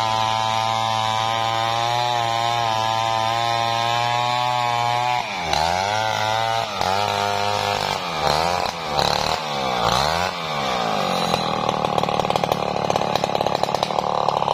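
Large two-stroke chainsaw, a Stihl 070, cutting through a big hardwood log. It runs at a steady high speed for about five seconds, then its engine speed drops and rises several times as the throttle is eased and opened. From about eleven seconds it runs hard again with a rapid rough flutter.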